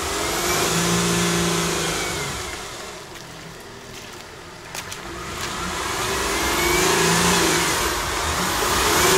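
A crossover SUV's engine revs in two surges, about a second in and again around seven seconds, as it pushes through deep muddy ruts, with a hiss of tyres working the wet mud. Its wheels are wider than the ruts and ride against the rut walls.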